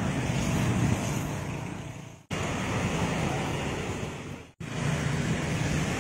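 Wind rushing over the microphone with road and traffic noise, as it moves along a street. The sound fades and cuts off abruptly twice, about two and four and a half seconds in.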